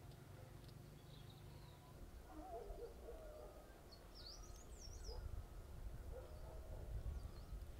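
Faint outdoor ambience: a low, uneven rumble of wind with small birds chirping a few quick, high, up-and-down calls, most clearly about four to five seconds in and again near the end.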